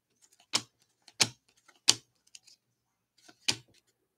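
Sharp snaps of stiff chrome baseball trading cards being flicked one by one from the front to the back of a hand-held stack: three clicks about two thirds of a second apart, a pause with faint ticks, then one more past three seconds in.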